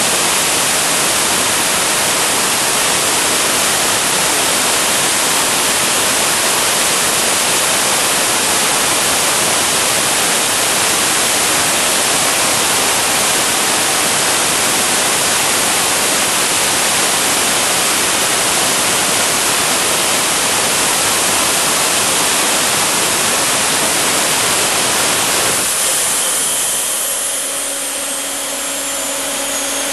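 Home-made gas turbine engine running with a loud, steady rushing roar. About 26 seconds in the roar eases and a high whine glides down in pitch over the last few seconds, with some steadier lower tones showing through.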